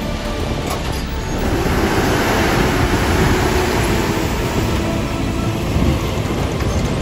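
A diesel semi truck pulling a pair of bottom-dump trailers drives past close by, its engine and tyres swelling to loudest about halfway through as the tractor goes by.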